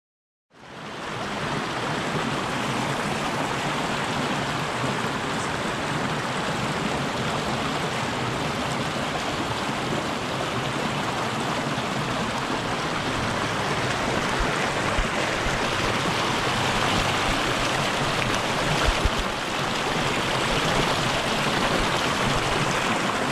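Small rocky creek rushing and splashing through a short cascade over boulders: a steady, close water rush that starts abruptly about half a second in. A few brief low thumps come about two-thirds of the way through.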